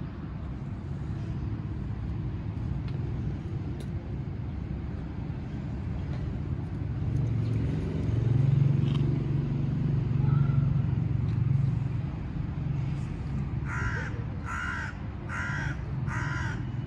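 A domestic long-haired cat purring steadily as it is stroked, the purr loudest in the middle. Near the end a crow caws four times in quick succession.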